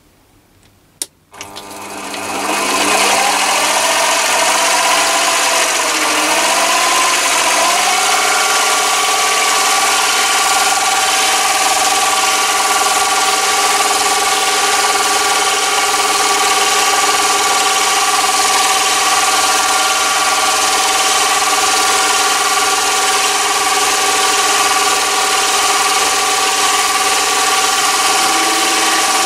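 A click about a second in, then a Chinese mini lathe's motor and spindle gearing start up with a rising whine that wanders in pitch for several seconds before settling into a steady run with the chuck spinning.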